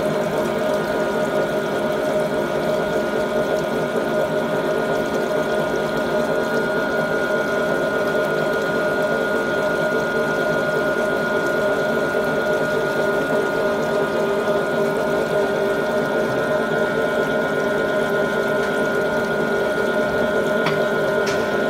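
Bimetal extruded fin tube rolling mill running steadily: three roller heads rolling fins onto the tube with coolant flowing over them, a steady hum with a couple of high tones and a liquid hiss. Two short clicks come near the end.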